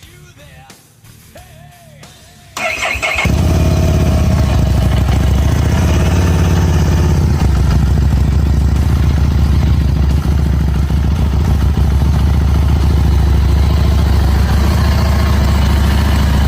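Harley-Davidson Street 750 V-twin cranked on the starter about two and a half seconds in, catching at once and settling into a steady, loud idle through a Two Brothers Racing slip-on exhaust. Faint music before the engine starts.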